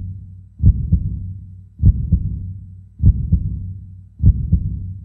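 Heartbeat sound effect: low double thumps ('lub-dub'), four of them about one every 1.2 seconds, building tension over the final bite.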